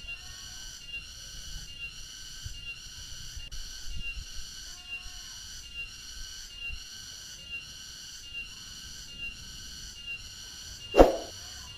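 Cicadas (cenggeret) singing: a high, pulsing drone that throbs a little more than once a second, with two faint short chirps. A single sharp, loud sound cuts in near the end.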